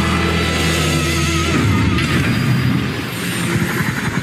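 Film-score music: sustained low notes under a wavering high tone, giving way to a busier, denser passage about a second and a half in.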